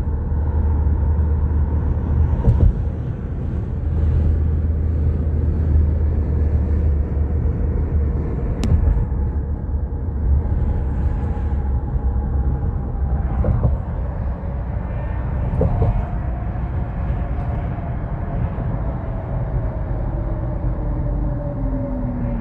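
A vehicle driving, with a steady low engine and road rumble. A whine falls slowly in pitch over the last several seconds.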